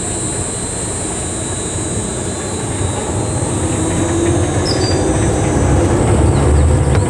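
Monorider ride-on monorail cart running along its rail: a steady rumble that grows gradually louder, with a steady high whine over it.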